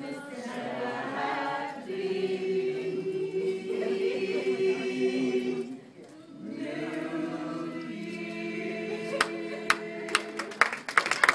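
A group of Christmas carollers singing unaccompanied, holding long notes, with a short break about six seconds in. Clapping starts near the end and builds into applause.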